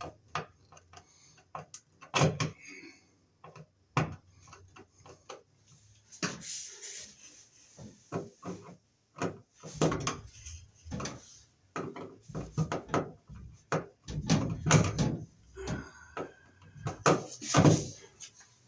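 Irregular clicks, knocks and short scrapes of hand work on a wall outlet: a flathead screwdriver on the mounting screws, and the receptacle and its old work box being handled and pressed into the wall.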